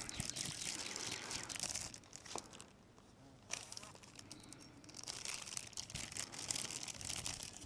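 Plastic zip-top bag crinkling and crackling as it is handled, with a quieter pause of about a second around the middle.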